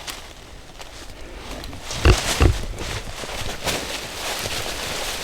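A deer carcass being dragged through leaves and brush, a rustling, scraping noise, with two short, loud, low grunt-like sounds about two seconds in.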